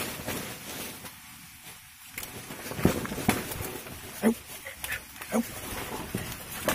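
Cornered porcupine giving several short grunts, about a second apart from a few seconds in, amid crackling and rustling of undergrowth.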